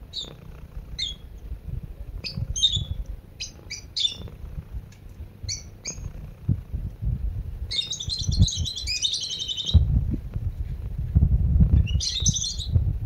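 Domestic cat purring, a low steady rumble that grows louder about ten seconds in. Small birds chirp over it: short single chirps in the first half, a long rapid twittering run about eight seconds in, and another brief burst near the end.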